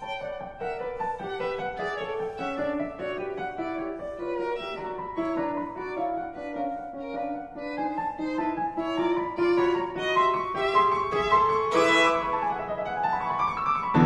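Background music: a violin playing a melody of short, stepping notes.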